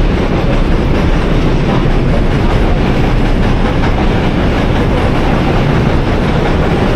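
A train running past, a loud steady rumble with the clatter of wheels on rails.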